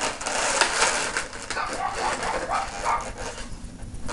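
Felt-tip marker drawing on an inflated latex balloon, with the balloon rubbing and squeaking under the hands and pen.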